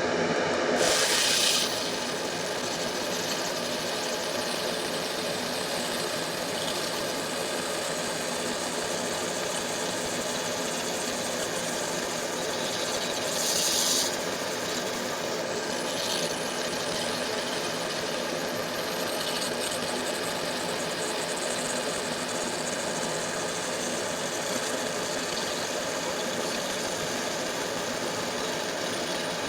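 Fiber laser engraver etching brass, buzzing steadily over the even running of its fume extraction fan, with two short hissing bursts, about a second in and about halfway through.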